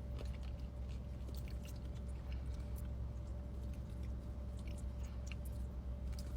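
Close-up chewing of a bacon burger: soft wet mouth sounds and small clicks, over a steady low hum.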